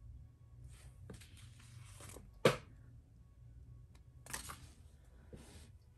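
Faint rustling of paper and sticker sheets being handled, with one sharp tap about two and a half seconds in.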